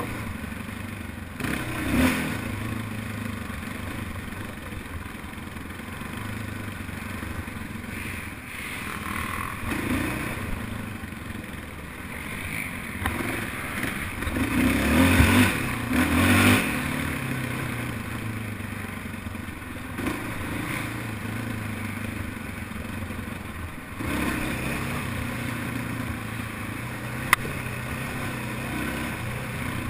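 Quad (ATV) engine racing under changing throttle, its pitch rising and falling, with a louder burst of revving around the middle. A sharp click sounds once near the end.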